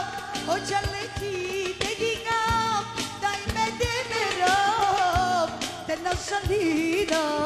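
A woman singing an ornamented melody into a microphone over amplified backing music with a steady drum beat, in the style of Romani pop-folk.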